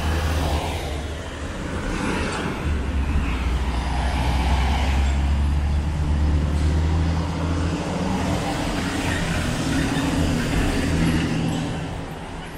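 City street traffic: cars passing and a heavy vehicle's engine running close by, a steady deep rumble that eases off near the end.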